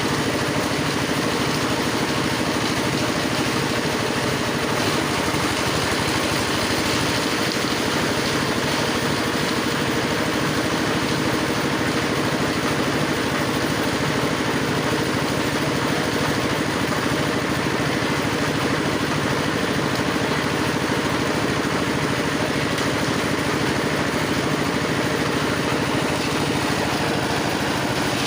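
Grass chopper machine for livestock fodder running steadily, its motor and cutter turning at an even speed with no change in pitch or level.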